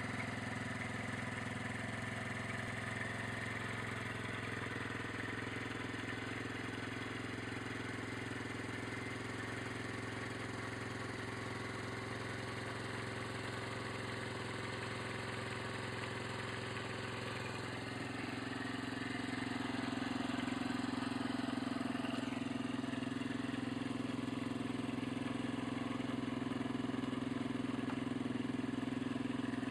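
50cc engine of a 2006 Superbyke RFX50 motorbike idling steadily while the bike stands still. About two thirds of the way through it gets a little louder and holds at that level.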